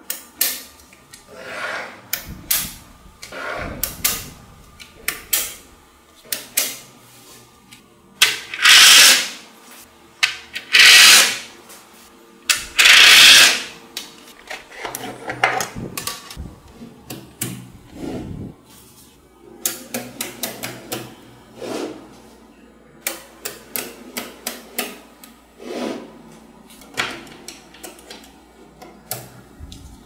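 Small magnetic balls clicking and rattling as blocks of them are snapped together, pressed and slid on a tabletop, with three louder rattles of about a second each in the middle.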